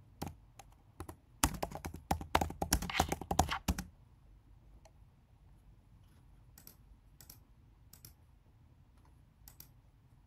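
Typing on a computer keyboard: a quick run of keystrokes in the first few seconds, then a handful of separate single clicks spaced out over the rest.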